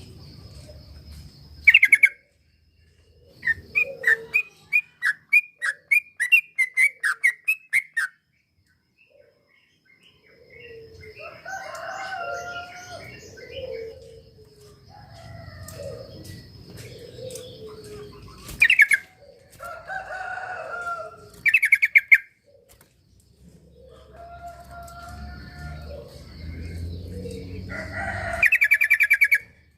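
Yellow-vented bulbul (trucuk) singing in bubbly, gurgling phrases, with a run of quick repeated chirps, about two a second, from about four to eight seconds in. Short loud shrill calls come near the start, twice around the middle and near the end. This is lure song for prompting a quiet bulbul to sing.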